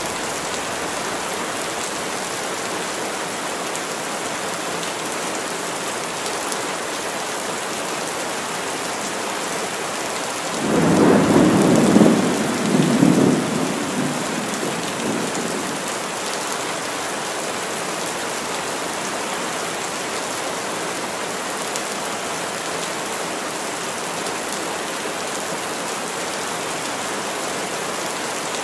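Heavy rain falling steadily in a forest, with one peal of thunder a little over a third of the way in that builds quickly, rumbles loudest for a few seconds and dies away.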